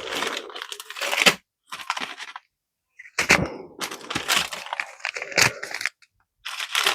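Plastic packaging being handled and crinkled in irregular bursts, with sharp cracks and snaps.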